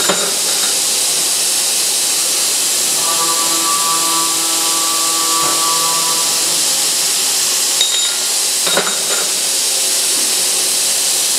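Samurai SR75S cold-cutting circular saw, its 285 mm 72-tooth blade turning at 125 rpm, sawing a 21 mm S45C steel bar: a steady, loud hiss. A ringing hum of several pitches comes in from about three to six seconds, and there are two short clicks, one at the start and one near nine seconds.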